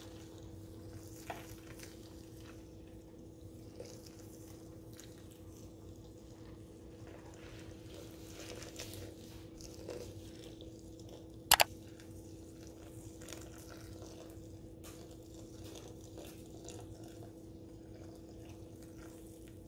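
Water poured slowly in a thin stream from a glass measuring cup onto coffee grounds, a faint trickle under a steady hum. One sharp click a little past halfway is the loudest sound.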